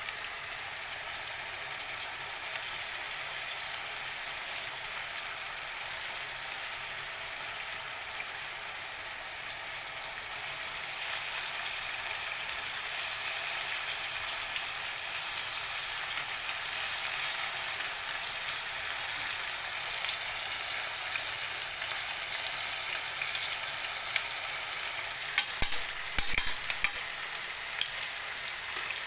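Fish sizzling steadily in a pan, growing a little louder about ten seconds in, with a few sharp knocks near the end.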